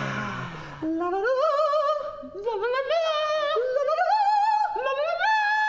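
A voice sliding down in pitch, then from about a second in a single voice singing with heavy vibrato in an operatic style, climbing upward note by note as in a vocal exercise.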